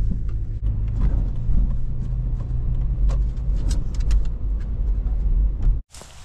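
Toyota FJ Cruiser's V6 engine and road rumble heard from inside the cabin while driving, with scattered light ticks and clicks. The sound cuts off suddenly near the end.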